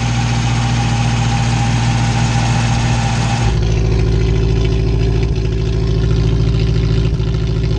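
Moskvich 403's four-cylinder petrol engine idling steadily. About three and a half seconds in, the sound changes abruptly to a deeper, evenly pulsing engine note.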